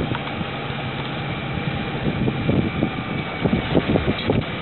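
Wind and water noise on a sailboat under way through choppy sea: a steady rush, with irregular low buffeting on the microphone from about two seconds in.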